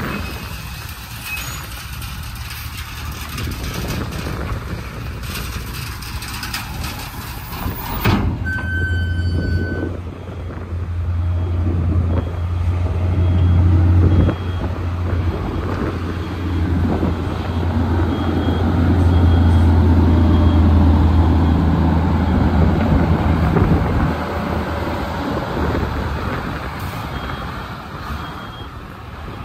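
Heavy diesel truck engines running, with a deep engine drone that becomes much louder about a third of the way in, while a reversing alarm beeps repeatedly.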